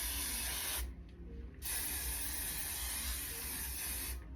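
Aerosol hairspray can spraying in two hissing bursts: a short one ending about a second in, then a longer one of about two and a half seconds.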